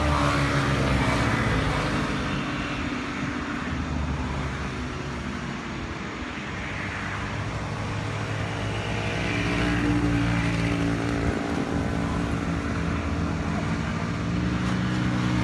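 A motor engine running with a steady low hum, swelling a little near the start and again about ten seconds in.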